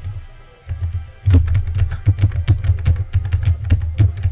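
Key switches of a homemade macropad clicking as keys are pressed in quick succession. The clicks are sparse at first and come thick and fast from about a second in.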